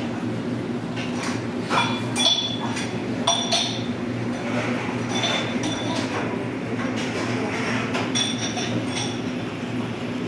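Metal spoon and dishes clinking against glassware: a string of short, ringing clinks, irregular and several seconds apart in places, over a steady low background hum.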